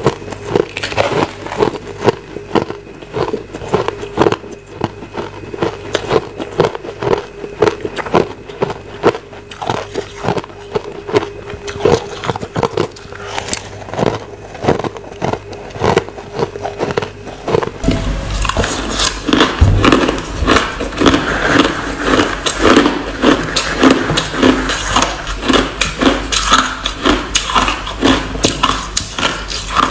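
Crushed ice being chewed close to the microphone: rapid, crisp crunches one after another. About two-thirds of the way through, the crunching turns fuller and denser, with a low hum underneath.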